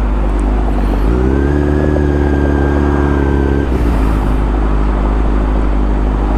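Honda CBR600F4i sport bike's inline-four engine under wind rumble on a helmet camera: about a second in the revs climb briefly and hold steady for a couple of seconds, then fall away suddenly as the throttle closes.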